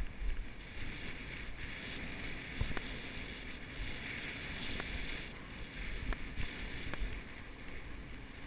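Skis sliding over packed, chopped-up snow: a steady hiss that fades out about five seconds in, over a low wind rumble on the microphone and a few light knocks.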